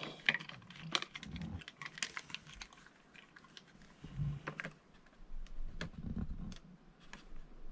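Rapid plastic clicks and taps from a McFarlane Toys action figure being handled and set onto its clear plastic display stand, with a few soft thumps along the way.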